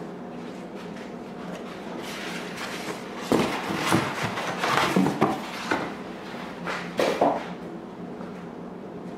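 A styrofoam packing block is pulled out of a cardboard box, rubbing, squeaking and knocking against the cardboard in a string of scrapes and bumps from about three seconds in until about seven seconds in.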